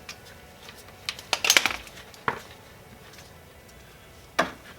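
Sharp metallic clinks of hand tools on metal: a quick cluster a little over a second in, a single clink shortly after, and one more near the end.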